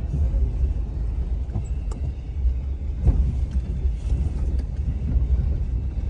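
A 4x4 driving slowly over a rough dirt track, heard from inside the cab as a steady low rumble, with a few light knocks along the way.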